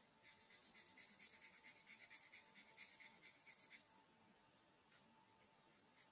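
Felt-tip marker scratching quickly back and forth on squared notebook paper while colouring in a square, a faint run of rapid, even strokes that stops about four seconds in.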